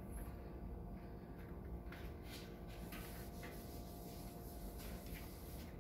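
Whiteboard eraser rubbing across a whiteboard in several short strokes, starting about two seconds in, faint over a steady low room hum.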